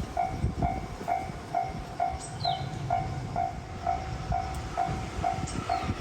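Japanese level-crossing warning bell ringing about twice a second while a train passes over the crossing, its wheels rumbling and knocking on the rails.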